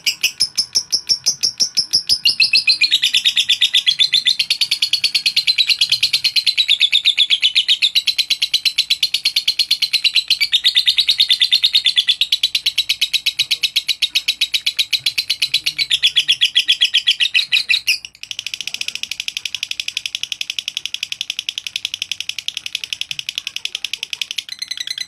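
Masked lovebird singing a long, unbroken chattering song (ngekek): a rapid, continuous string of sharp, shrill chirps. The song breaks off abruptly about 18 seconds in and resumes at once, somewhat quieter.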